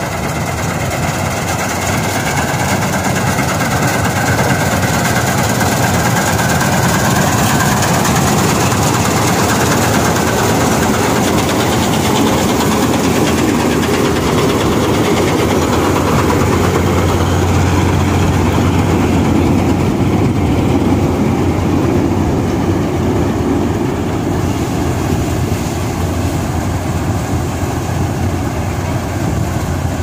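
Self-propelled combine harvester running steadily while harvesting soybeans: a loud, unbroken drone of its engine and working machinery, heaviest in the low end around the middle.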